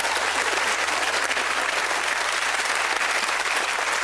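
Studio audience applauding: many hands clapping at once in a steady, dense patter.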